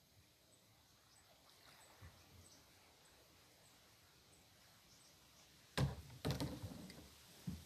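Faint, high chirping that repeats about every half second, probably a bird or insect, over quiet open air. About six seconds in, a paddle strikes the water and knocks against the small polyethylene boat's hull several times, with one more knock near the end.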